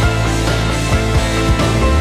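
Instrumental background music with a steady beat; a deeper bass note comes in near the end.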